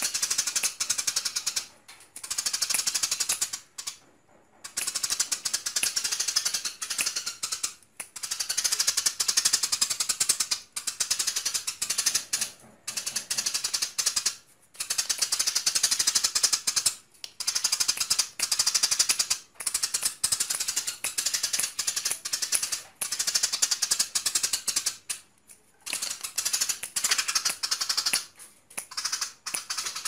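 Eurasian tree sparrow singing in full, vigorous chatter: long runs of rapid, high, clicking chirps, each run lasting a few seconds with brief pauses between.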